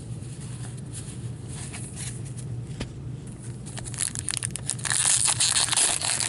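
Faint ticks and rustles of trading cards being handled over a low steady hum. About four seconds in, an O-Pee-Chee hockey card pack's plastic wrapper is torn open and crinkled: loud, dense crackling.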